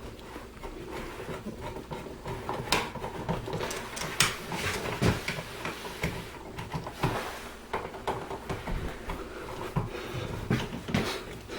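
Irregular small clicks, taps and scrapes of a dimmer switch being handled and pushed into its electrical wall box while its mounting screws are started.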